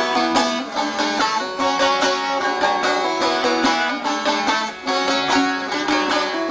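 Bağlama (saz, Turkish long-necked lute) played solo: a fast strummed melody, the strings struck in quick, even strokes over ringing repeated notes.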